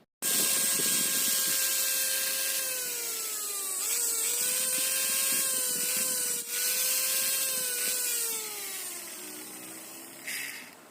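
Juicer-blender's universal motor running at high speed with a strong hum and hiss. The pitch sags briefly and recovers, then falls away as the motor slows over the last couple of seconds. A short scrape or rattle comes near the end.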